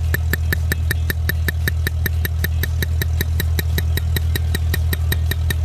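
Air-powered missile (mole) boring tool hammering its way through soil, its internal ram striking the head in a rapid, even tut-tut-tut of about eight strikes a second, over a steady low drone.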